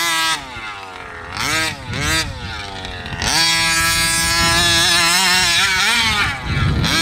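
1/5-scale HPI Baja 5B buggy's small two-stroke gas engine being driven hard. It is held at a steady high pitch, drops and blips about half a second in, and is back at a steady high pitch about three seconds in. The pitch wavers and drops briefly near the end.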